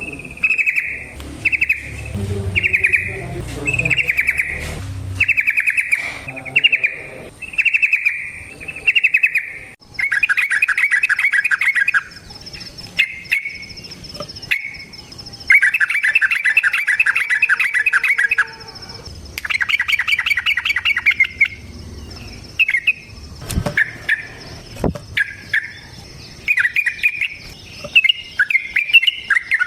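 Yellow-vented bulbul (trucukan) singing. It starts with a run of short repeated phrases about once a second, then breaks into long rapid trilling phrases of a couple of seconds each, and ends in quicker broken notes. A faint steady high whine lies underneath from about a third of the way in.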